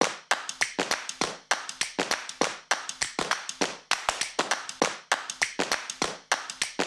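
Quick, uneven run of sharp hand claps, about five a second, played back as a loudspeaker sound test.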